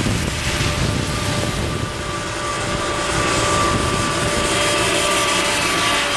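New Holland combine harvester's engine running as it drives along a wet road, a steady drone with a constant whine over it, and tyre hiss on the wet surface.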